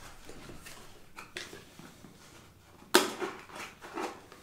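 Cardboard packaging being handled: the flap of a thin outer carton is opened and a stiff inner cardboard box is slid out, with short rustles and scrapes. A sudden sharp crack about three seconds in is the loudest sound.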